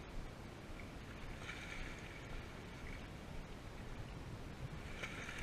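Steady wind and water washing against rocks, with a faint high whine that comes in twice: once for about a second and a half, and again near the end.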